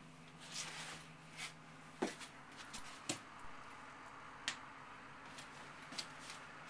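Quiet handling and movement noise as a handheld camera is carried through a trailer interior: a few sharp clicks and knocks, soft rustles, and a low steady hum underneath.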